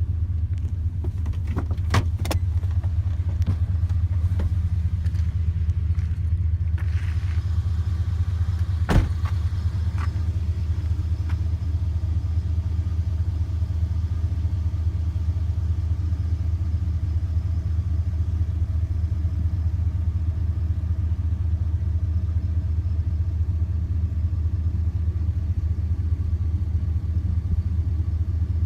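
Steady low rumble of a moving vehicle, with a few sharp clicks about two seconds in and again near nine seconds.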